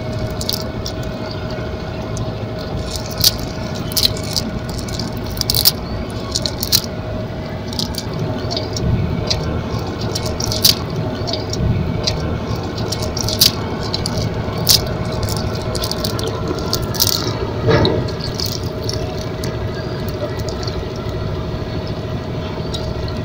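Metal chain sinkers and snail shells in a wet cast net clinking and rattling in irregular sharp clicks as the net is handled, over a steady background hum.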